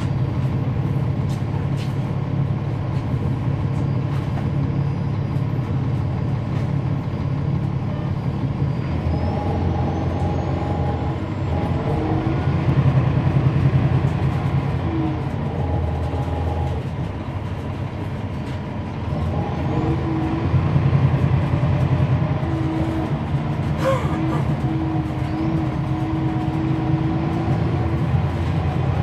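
Cummins ISL9 diesel engine of a 2012 NABI 40-SFW transit bus heard from on board, running steadily, then pulling harder twice with a lull between, as in city stop-and-go driving. A short click sounds near the end.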